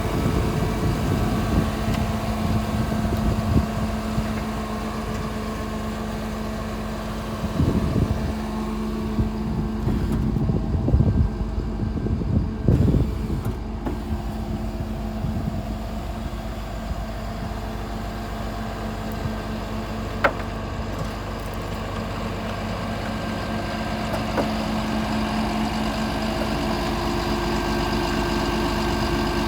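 Volvo D8H diesel engine of a tracked asphalt paver running steadily at idle, with a few louder uneven stretches between about 8 and 13 seconds in and a single sharp click about 20 seconds in.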